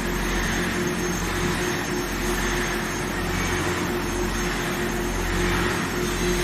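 Induction quenching and tempering line for piston rods running: a steady industrial drone with a constant mid-pitched hum, a faint high whine and broad machine noise.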